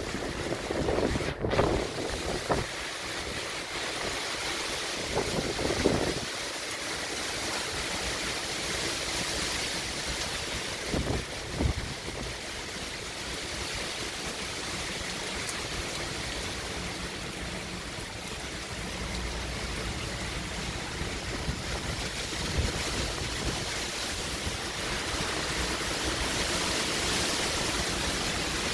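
Hurricane wind and rain blowing steadily, with stronger gusts in the first few seconds and again briefly about eleven seconds in.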